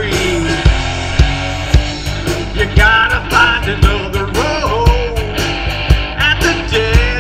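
Live rock band playing: electric guitars and bass over a drum kit keeping a steady beat of about two hits a second, with a melody line bending above it.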